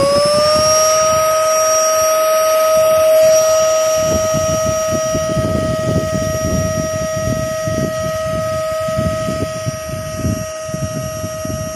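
Airbank Puffer Pro electric pump running as it inflates a kite: a loud, steady high whine with a rush of air, its pitch rising as the motor comes up to speed and settling within the first second.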